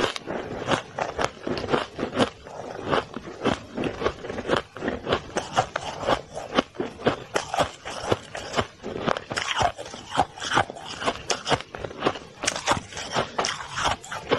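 Crunching of packed shaved ice being chewed, an irregular run of crisp crunches several times a second.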